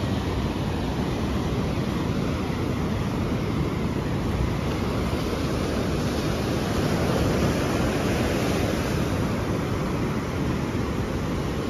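Ocean surf washing and breaking on a sandy beach, a steady rushing noise with a low wind rumble on the microphone, swelling a little about seven seconds in.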